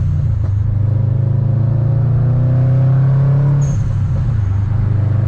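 Turbocharged Subaru WRX engine pulling under acceleration, its note climbing steadily through a gear. About two thirds of the way in the revs drop for a gear change and a short high turbo whistle sounds as the throttle lifts, then the engine pulls again.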